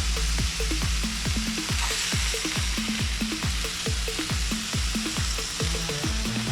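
Background music with a deep bass beat, about two falling bass hits a second, over a steady sizzling hiss of chicken cooking on a smoker grill.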